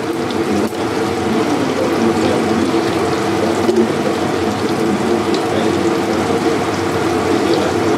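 Spice paste (ginger, garlic, chilli and pepper) frying in hot oil in a kadai: a steady sizzle.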